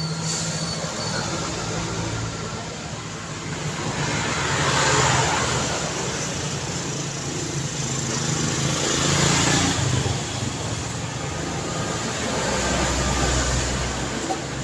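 Road traffic: engines running steadily, with vehicles passing close about a third of the way in and again past the middle, each bringing a rush of tyre and engine noise. A deep low rumble follows near the end.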